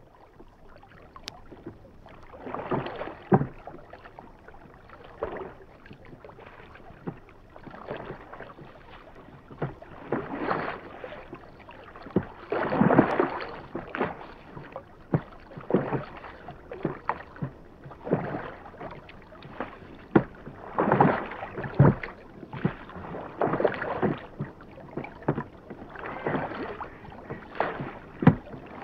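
Rowboat rowed steadily: oars dipping and pulling through the water about once every two and a half seconds, each stroke a swell of splashing, with sharp knocks here and there.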